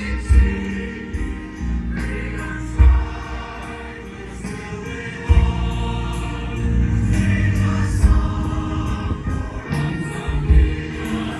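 Choral music with a choir singing, broken every two to three seconds by a deep thud.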